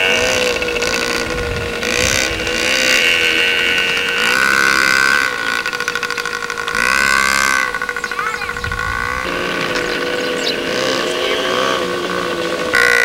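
Small engines of a child's dirt bike and a four-wheeler running, a steady drone whose pitch wavers up and down as the riders work the throttle.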